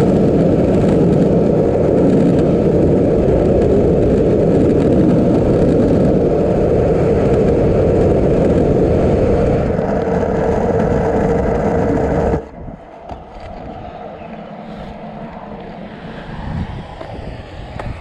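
Skateboard wheels rolling over a road surface, a loud steady rumble that drops off sharply about twelve seconds in, leaving a much quieter background noise.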